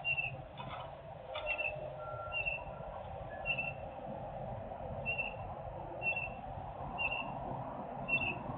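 A steady industrial drone from factory machinery, the excessive noise being complained of, with a bird giving short high chirps about once a second over it.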